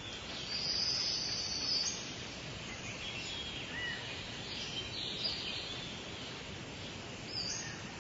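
Countryside ambience: birds chirping and calling over a steady high hiss, with a long high call in the first two seconds and scattered short chirps after.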